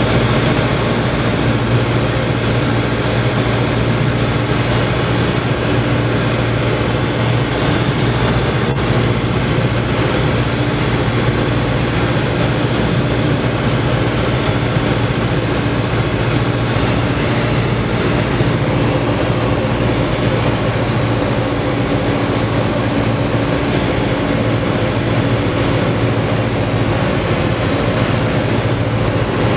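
Robin DR460 light aircraft's piston engine and propeller heard inside the cabin, a steady drone on approach to landing.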